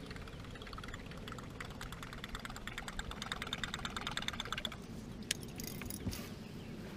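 Fishing reel being cranked, a fast run of ticking for about four seconds, then a couple of single clicks, over a low steady rumble of wind and water.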